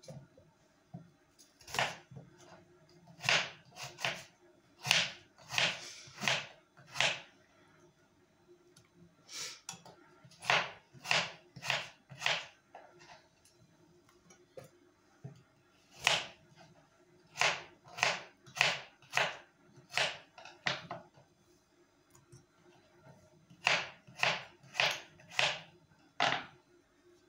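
Kitchen knife chopping peeled raw potatoes into chunks on a wooden cutting board: sharp chops about half a second apart, in four runs of five to seven with short pauses between.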